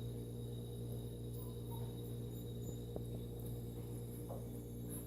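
Steady low electrical hum with evenly spaced overtones, and a few faint soft ticks over it.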